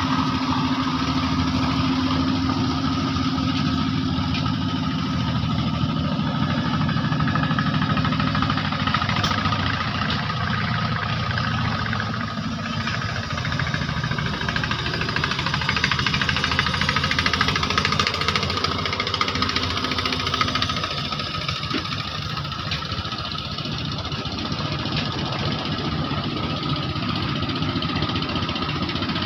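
Engine of a klotok, a small wooden river boat, running steadily at a constant speed.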